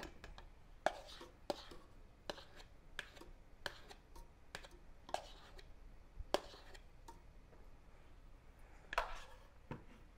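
A spoon tapping and scraping beaten egg out of a plastic mixing bowl: a run of light clicks about every two-thirds of a second for the first six seconds, then a brief rustle near the end.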